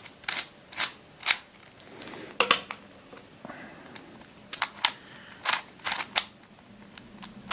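Witeden 2x2x3 Camouflage II shape-shifting puzzle being turned by hand: about a dozen irregular sharp clicks and clacks of plastic pieces snapping into place as the layers turn. The puzzle is new and a little stiff, catching slightly.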